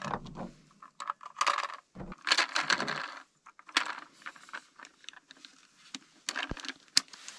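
Irregular clicks and rattles of a Stealth Cam trail camera's plastic housing and loose AA batteries being handled, with the batteries clinking together as they come out of the battery compartment.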